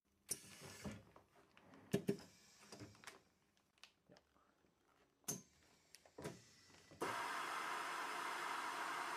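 A plastic bag full of vials rustles while the sealer's metal clamp bar is handled and closed, with several sharp knocks. About seven seconds in, a steady loud hiss starts suddenly: the vacuum sealer drawing the air out of the bag.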